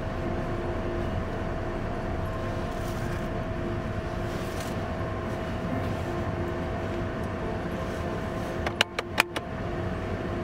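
Steady rushing hum of a car's engine and heater fan, heard inside the cabin. A quick run of four sharp clicks comes near the end.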